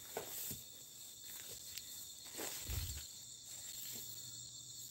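Crickets and other night insects chirring steadily in a high, even chorus. Faint footsteps and rustling through undergrowth, with a low thud about two and a half seconds in.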